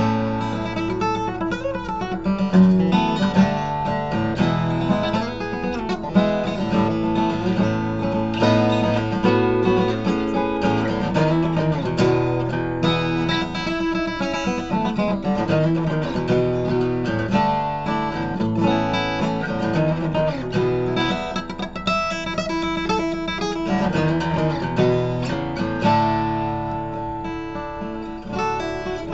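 Seagull Performer cutaway steel-string acoustic guitar being played, a continuous passage of plucked notes and strummed chords ringing out.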